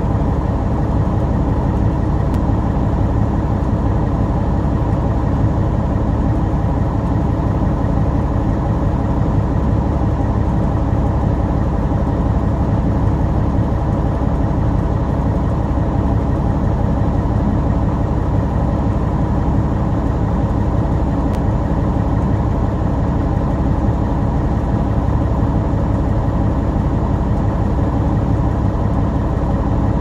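Diesel semi-truck engine idling steadily, heard from inside the cab.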